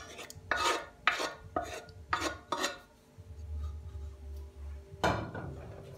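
A wooden spoon scrapes chicken-and-mushroom filling out of a speckled non-stick pot, with about five quick scrapes over the first three seconds. After a quieter moment there is one more scrape or knock about five seconds in.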